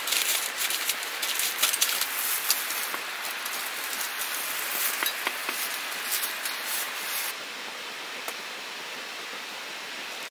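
Aluminium foil crinkling and rustling as food is wrapped by hand and set down on a heater's top, with many small crackles. The crinkling stops about seven seconds in, leaving a steady hiss.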